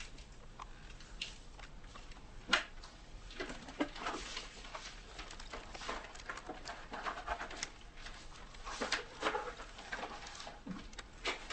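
Quiet handling noises as protective goggles and long rubber gloves are put on: irregular rubbing, rustling and light clicks, with a sharper click about two and a half seconds in.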